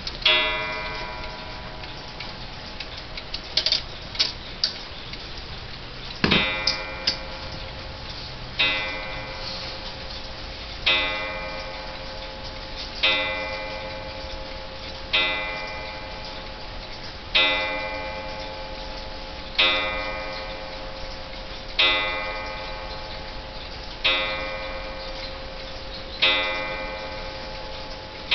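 Emperor pendulum wall clock striking the hour, with its hands at about twelve. The strokes come slowly, about one every two seconds, each ringing out and fading, over the steady tick of the movement. A few sharp clicks come about four seconds in, before the run of strokes.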